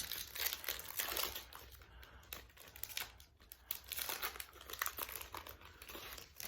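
Foil booster-pack wrapper crinkling and being torn open by hand, a dense run of irregular crackles.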